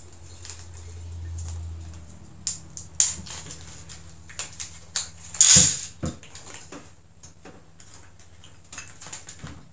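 Small metal parts of swing-top bottle caps, wire bails and a nut and bolt, clicking and rattling against each other and the plastic tray as they are fitted together by hand. A louder short clatter comes about halfway through.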